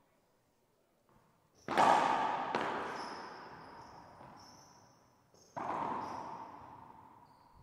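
Racquetball rally in an enclosed court: a hard ball impact about two seconds in, ringing on with a long echo, and another about six seconds in. High squeaks of court shoes on the hardwood floor sound above them.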